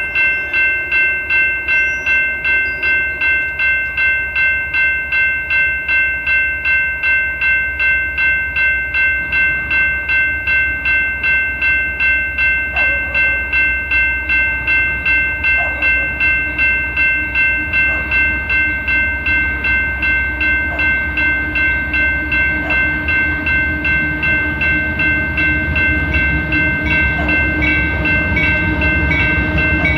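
Railroad crossing warning bell ringing steadily, about two strokes a second, with the crossing gates down. A low rumble of the approaching train's locomotive builds near the end.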